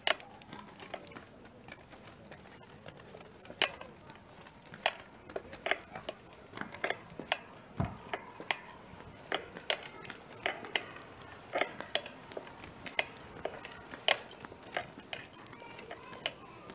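Irregular sharp clicks and light clinks, about one or two a second, from a handheld phone and the clothing and things close to it as she moves. This is handling noise rather than any one distinct source.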